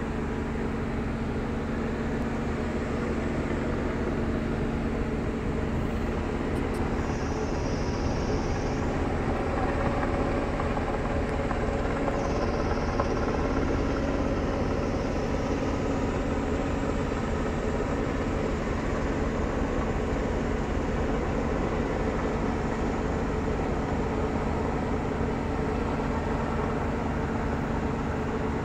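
Steady mechanical drone of a vessel's engines and machinery, a constant low hum that holds level throughout.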